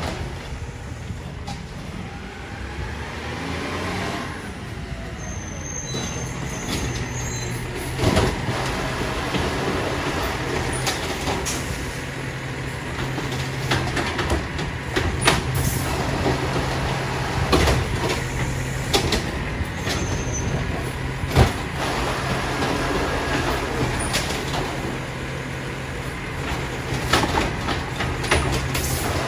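Diesel engine of a Peterbilt 520 automated side-loader garbage truck running while its arm lifts and tips wheeled trash carts, with the engine and hydraulics rising and falling in pitch. Repeated loud clunks and bangs come from the carts being shaken out and set back down.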